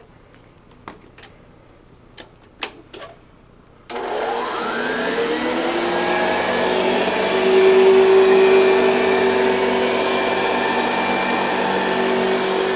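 A few light clicks, then about four seconds in a vintage Hoover Convertible Model 704 upright vacuum cleaner switches on. Its motor whine rises as it spins up to speed, then runs steadily.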